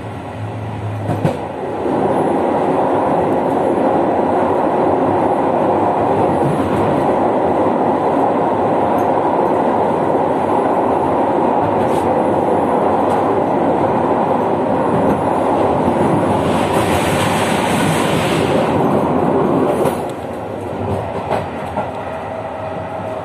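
Passenger train running along the track: steady wheel-on-rail noise with scattered clicks over rail joints. About two seconds in the running noise grows much louder and stays loud until about twenty seconds in, then drops back.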